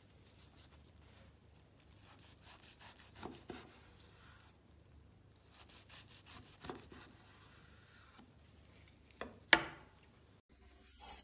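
A knife sawing through steak on a wooden cutting board: two runs of quick back-and-forth strokes, then a single sharp knock near the end.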